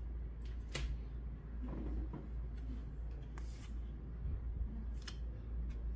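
Trading cards being handled and sorted by hand: a few short rustles and flicks of card stock scattered through, over a steady low hum.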